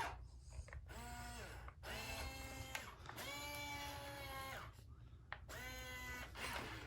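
Robosapien V2 robot's small gear motors whirring in four short runs, each a steady whine that starts and stops as its limbs move.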